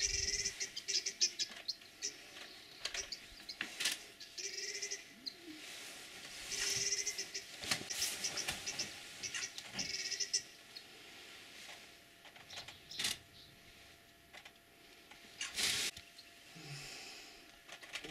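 Birds calling in several short bursts of rapid, high notes, with a few sharp clicks in between.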